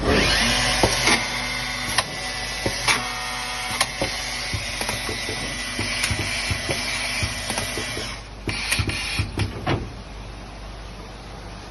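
CNC boring and dowel-inserting machine at work: steady motor and spindle noise with many sharp knocks and clacks from the drilling and dowel-driving units. About eight seconds in the running noise drops and a quick cluster of knocks follows.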